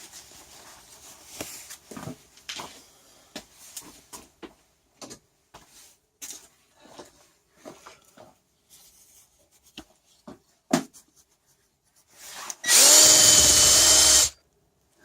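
Small clicks and knocks of parts and tools being handled, then about thirteen seconds in an electric drill runs once for about a second and a half, its motor whine rising as it spins up.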